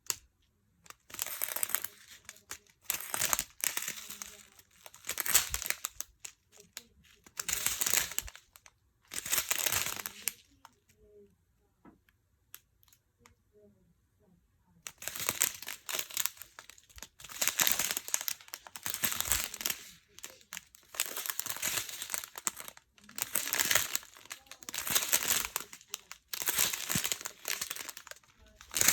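Small plastic bags of diamond-painting drills being handled, crinkling in repeated bursts, with a quiet spell of a few seconds midway.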